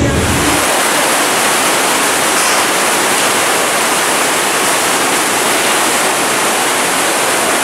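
Steady rushing of creek water, a loud even hiss.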